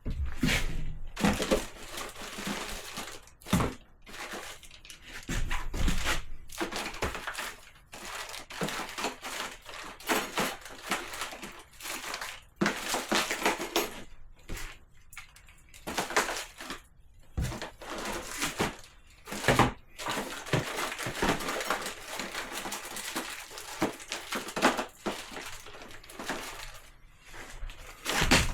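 Small plastic RC parts and their packaging being handled and rummaged through in a box: irregular clicks, knocks and rustles.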